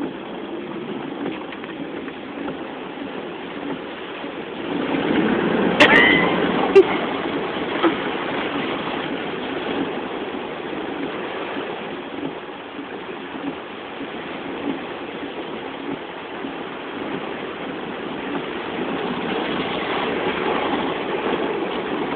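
Car driving on flooded, wet roads, heard from inside the cabin: steady road and engine noise, with a louder swell about five seconds in and a few sharp clicks just after it.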